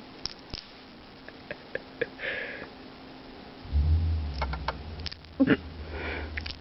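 An animal sniffing in short breathy puffs, with scattered small clicks; a low hum sets in about halfway through.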